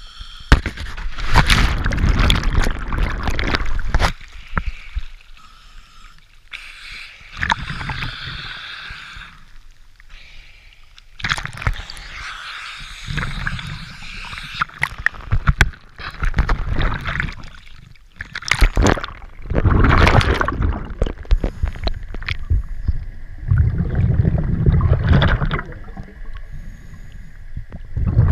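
Water splashing, sloshing and gurgling around a diver's mask-mounted camera as he goes into the water and under, in several loud surges a few seconds long with quieter stretches between.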